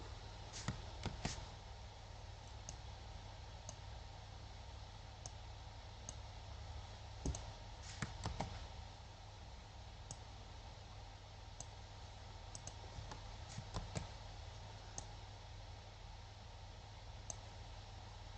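Computer mouse clicking now and then: single clicks and quick little clusters of clicks, over a faint steady low hum.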